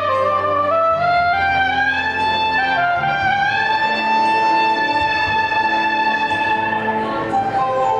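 Soprano saxophone playing a smooth-jazz melody, climbing in small steps and then holding one long high note for about four seconds, which ends near the end. It plays over a backing track with sustained bass and keyboard notes.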